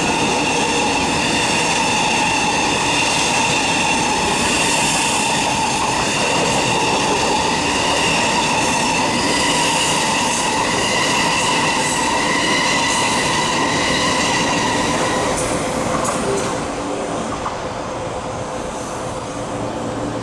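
A passenger train hauled by an SS8 electric locomotive passing at speed without stopping: a loud steady rail rumble with high whining tones over it. A few clicks come near the end, and the sound then eases off as the train moves away.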